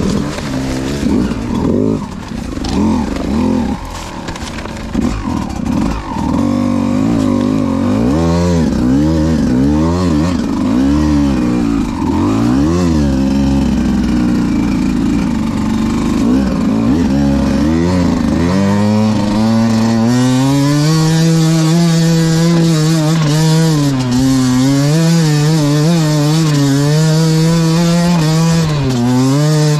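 Beta 200 RR dirt bike's two-stroke single-cylinder engine being ridden, its revs rising and falling constantly with the throttle. From about two-thirds through it holds a higher, steadier pitch with small wavers.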